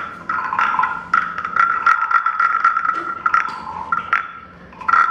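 Frog croaking made as a sound effect with wooden percussion: many quick scraped wooden clicks.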